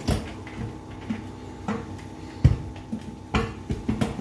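Metal beaters of a hand mixer knocking and scraping against a glass mixing bowl as flour is stirred into cake batter by hand, with a few sharp clinks, the loudest about two and a half seconds in. A faint steady hum runs underneath.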